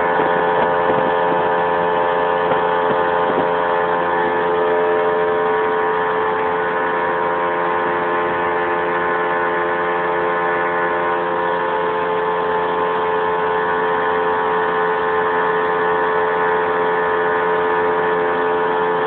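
Outboard motor running steadily at full throttle, its pitch holding constant, with the rush of water and wind from the boat at top speed.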